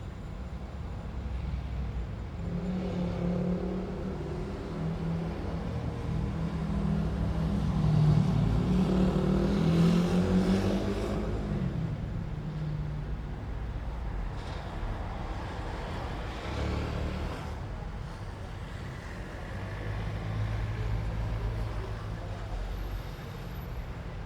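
Street traffic: cars passing one after another over a steady traffic rumble. The loudest passes about a third of the way in, its engine hum swelling and then fading, with quieter vehicles going by later.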